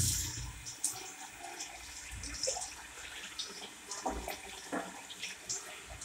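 Water from a tap running into a stainless steel sink, splashing as a hand is rinsed under the stream. The water is loudest at the very start and settles within about half a second.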